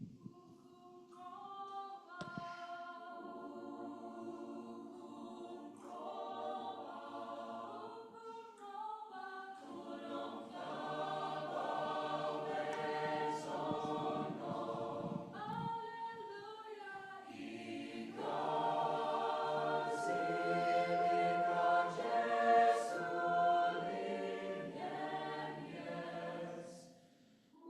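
Choir singing a verse of a Zulu song a cappella in close harmony, swelling louder in the second half. A few sharp alveolar tongue clicks, the 'q' click of 'ukunqoba', snap through the chords.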